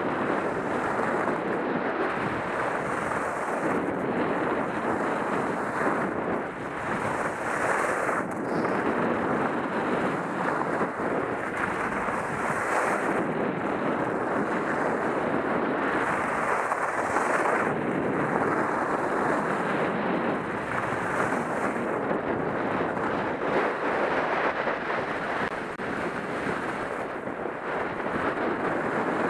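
Wind rushing over a helmet-mounted camera's microphone during a downhill ski run, mixed with skis hissing on groomed snow. A higher hiss swells about every four to five seconds.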